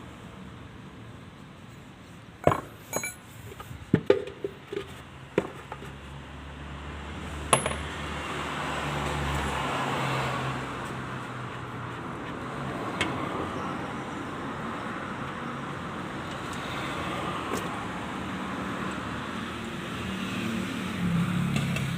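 Metal tools and parts clinking and knocking against each other several times, followed by a steady, noisy mechanical hum.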